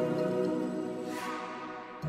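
Calm background music of held notes, growing quieter toward the end, with a brief airy swell about a second in.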